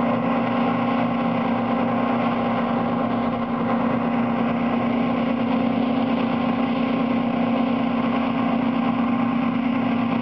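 John Deere T560 combine harvester running steadily while harvesting grain: an even drone of engine and threshing machinery with a steady whine over it.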